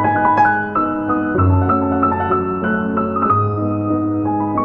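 Background piano music: a melody of single notes stepping over held low bass notes.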